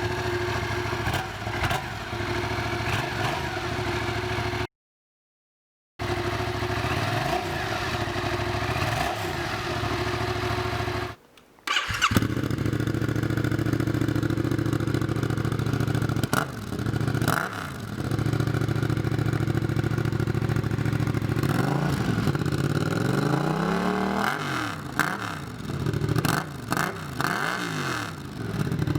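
Yamaha MT-07's 689 cc parallel-twin engine idling and blipped with short throttle revs that rise and fall, in two takes split by a brief cut. The first take is through the stock exhaust; after the cut it runs louder through an aftermarket sport exhaust with the dB killer removed, revved several times near the end.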